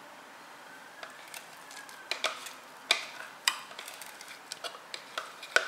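Metal spoon scraping and knocking against a food-processor bowl while scooping out butter: a run of sharp, irregular clicks and knocks that starts about two seconds in.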